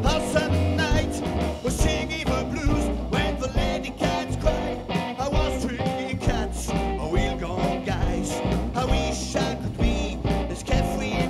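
Live rockabilly band playing: hollow-body electric guitar and drums with a steady beat, and a man singing into the microphone at times.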